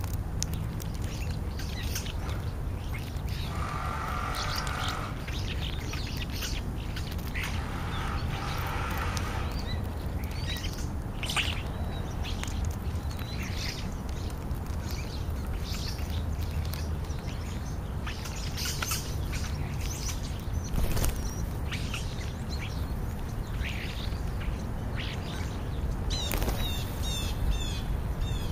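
European starlings chirping and clicking in short, scattered calls, with two longer buzzy calls early on and a quick run of repeated chirps near the end, over a steady low rumble.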